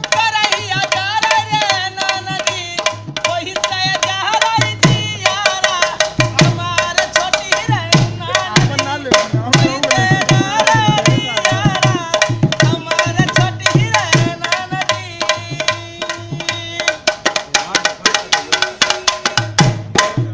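Dholak playing a fast, dense rhythm of sharp treble strokes and deep bass strokes, under a wavering melody with a steady held drone, in folk music.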